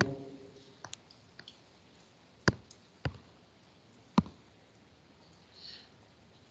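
Computer mouse clicking: a handful of separate sharp clicks spread over several seconds, the loudest about two and a half and four seconds in, with a brief soft rustle near the end.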